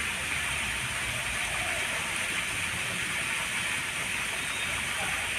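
Steady rush of falling water, a garden pond's rock waterfall running.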